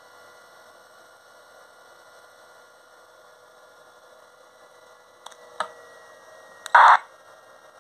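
Steady electrical hum and hiss from the radio's 24-volt power supply. A little after five seconds in there are two sharp clicks, and near seven seconds a short, loud burst of noise.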